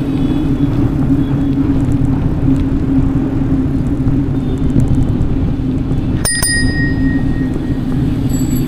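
Bicycle bell rung once about six seconds in, a sharp strike followed by a ringing tone that lasts about a second, with a fainter ring starting near the end. Under it, the steady low rumble of the moving bicycle runs throughout.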